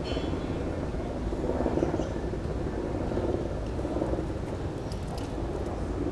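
Steady low rumbling outdoor background noise, with a few faint clicks about five seconds in.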